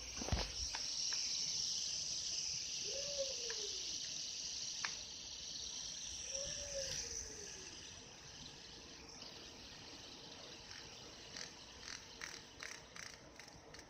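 A fidget spinner flicked into a spin with a knock, its bearing whirring with a high hiss that fades away over about eight seconds as it slows down.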